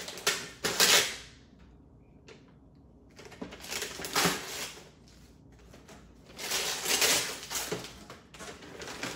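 Gift wrapping paper being torn and crinkled as a present is opened, in three bursts with short quiet gaps between.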